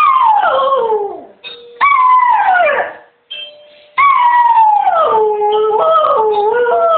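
Greyhound howling: three long howls, each starting high and sliding down in pitch, the third held for several seconds and wavering. It is her usual response to the doorbell ringing.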